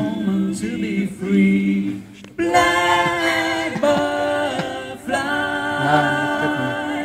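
A small a cappella vocal group singing in close harmony, with no instruments. There is a brief pause about two seconds in, then they come back in with fuller, held chords.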